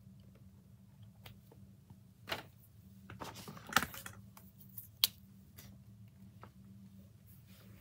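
Hands handling drawing things on a table: a black marker being capped and set down, and the sheet of paper being shifted. This gives a few sharp clicks, the loudest about four and five seconds in, and a short rustle just before four seconds, over a faint low hum.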